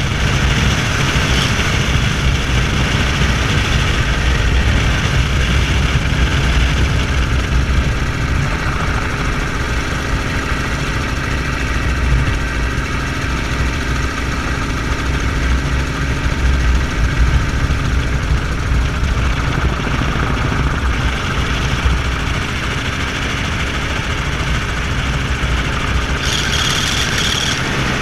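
Helicopter in flight, heard from its open cabin doorway: steady engine and rotor noise, loudest in the low range. A higher hiss joins for a couple of seconds near the end.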